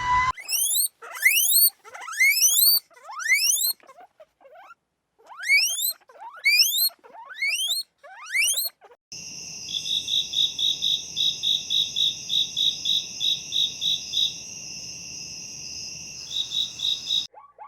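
Animal calls: short high squeals that rise sharply in pitch, several a second, in runs with gaps. After about nine seconds they give way to a steady high buzz with a pulsing tone about four times a second, which stops shortly before the end.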